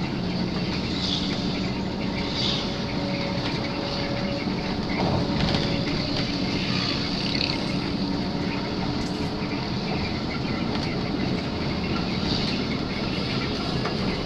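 Bus engine and road noise inside the cabin of an intercity coach under way: a steady drone with a low hum.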